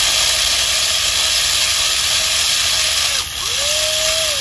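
The small electric motors of a homemade model super seeder and tractor are running with a thin whine. The whine sags and then climbs back in pitch about three and a half seconds in, as the spiral tiller blades churn dry soil under a steady hiss.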